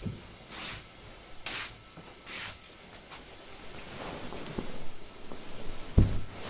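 Tabi-socked feet stepping onto tatami, then three hissing swishes about a second apart as the feet slide across the mats. Cloth rustling as a hakama is gathered, then the loudest sound: a dull thump near the end as the wearer kneels onto the mat.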